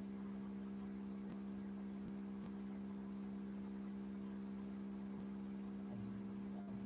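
Steady electrical hum: one low, unchanging tone with a few overtones above it, and nothing else.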